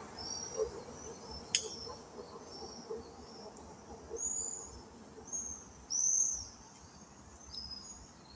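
Small birds chirping outdoors: a string of short, high calls repeating every half second to a second, the loudest about six seconds in. One sharp click about a second and a half in.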